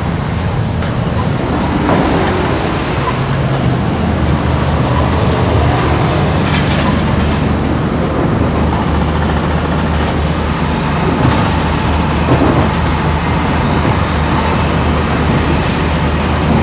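Road traffic on a city street: a steady low rumble of engines and passing cars.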